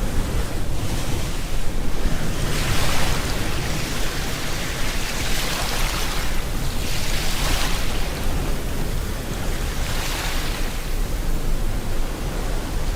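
Ocean surf: waves wash in four times, each a swelling hiss, over a steady rush of rain.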